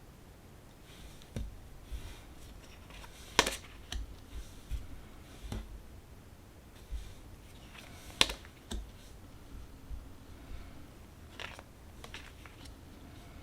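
Large tarot cards being handled and turned over one after another: scattered soft taps and slides of card stock, with two sharper clicks, one a few seconds in and one past the middle.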